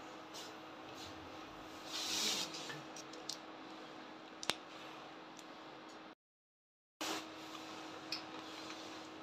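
Faint brush-and-paper sounds: a Chinese brush brushing over paper with a short soft swish about two seconds in, and a few light clicks of the brush or tools being handled, over a steady low hum. The sound drops out entirely for about a second midway.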